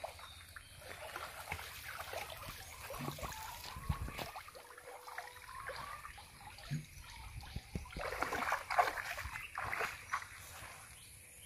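Water splashing and trickling in small irregular bursts, busiest and loudest about eight to ten seconds in.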